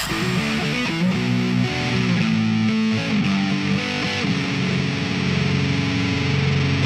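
Music: a sustained distorted electric guitar playing held notes that change every second or so.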